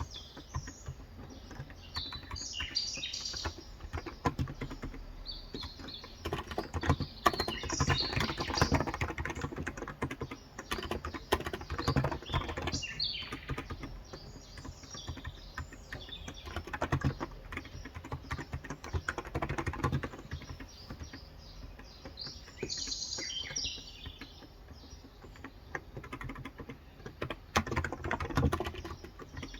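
Fast typing on a Cox Endeavor electro-capacitive (Topre-style) 35g tenkeyless keyboard: rapid key clacks in bursts with short pauses between. Birds chirp in the background now and then.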